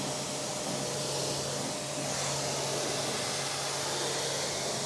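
Kranzle pressure washer jet rinsing foam off a car wheel and tyre: a steady hiss of spraying water with a low hum underneath.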